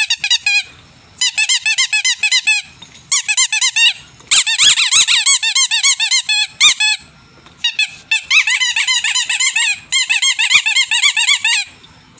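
German shepherd puppies squealing: rapid high-pitched cries, several a second, in bursts with short pauses between. The cries overlap most thickly a little before the middle.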